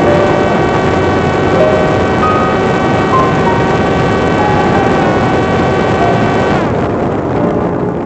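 Parrot Disco fixed-wing drone's electric motor and propeller whining at high speed over loud rushing air. Near the end the whine slides down in pitch as the motor slows.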